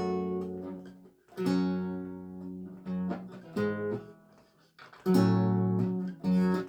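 Lute playing slow music: plucked chords that each ring and fade away, with a brief pause shortly before a fuller chord about five seconds in.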